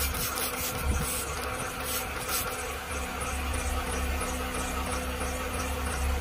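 A steady low buzzing hum, with a few quick squirts from a spray bottle of soapy water onto the plugged tyre shoulder in the first couple of seconds.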